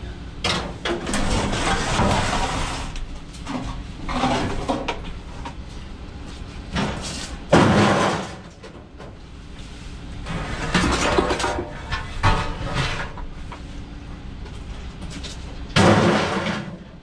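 Heavy scrap metal being handled and dropped: an irregular run of clattering scrapes and bangs, the two loudest about halfway through and near the end.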